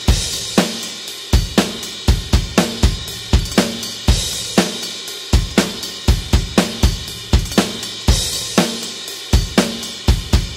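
A rock drum kit playing a steady beat at 120 bpm: bass drum, snare and hi-hat in a regular pattern, with a crash cymbal about every two bars.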